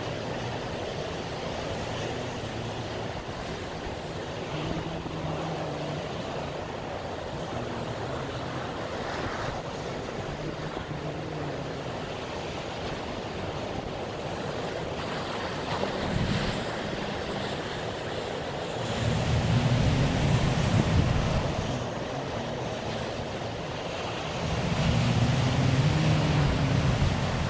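Heavy storm surf breaking continuously on the shore, with wind buffeting the microphone. The sound swells louder and deeper twice, about two-thirds of the way through and again near the end.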